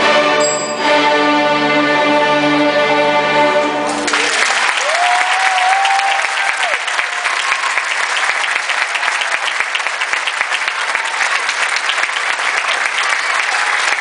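A school string orchestra of violins, cellos and basses holds its final chord, which cuts off about four seconds in. The audience then breaks into applause, with a single cheer rising over the clapping shortly after it starts.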